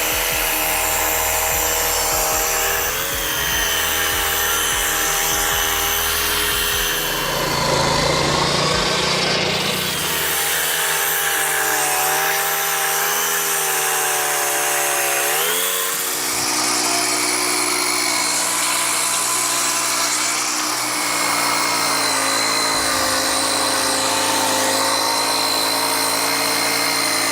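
Lucas portable sawmill running: a petrol engine driving its circular saw blade through a log. The engine's pitch drops about a third of the way in and climbs again about halfway through.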